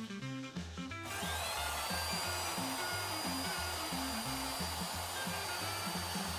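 Bandsaw starting up about a second in, its motor whine rising and then holding steady as it runs, over background music with a steady bass line.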